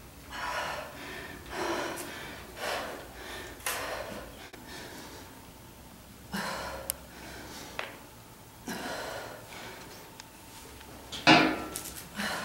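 A woman breathing hard from exertion: a series of forceful exhales, one every second or few, the loudest near the end, with a few faint clicks between them.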